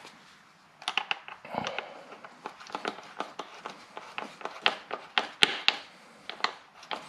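Worm-drive hose clamp on a rubber airbox intake boot being tightened with a 6 mm socket driver: an irregular run of short sharp clicks and ticks, several a second, starting about a second in.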